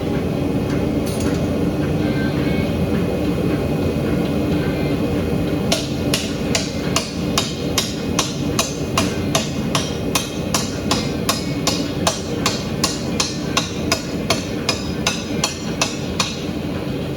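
Hand hammer striking a steel billet on an anvil during forging: a few single blows, then a steady run of ringing strikes at about two to three a second from about six seconds in until near the end, over a continuous low roar.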